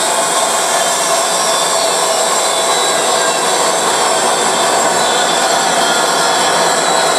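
Large 5-horsepower bandsaw blade cutting through a thick forged aluminum part, biting in aggressively as the power-fed table advances the work slowly. A steady, loud cutting noise with a faint constant tone in it.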